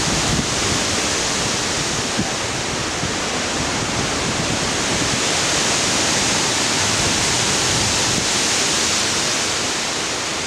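Tropical-storm winds rushing through the leaves of the tree canopy, a steady dense hiss with little rise and fall.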